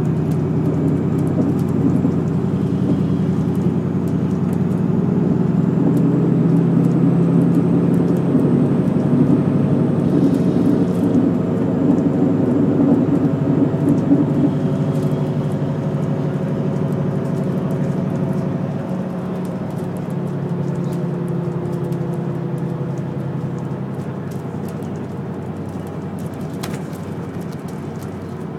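Express bus moving along the road, heard from inside the passenger cabin: the steady drone of its diesel engine over tyre and road rumble. About two-thirds of the way through the engine note drops and the sound eases off.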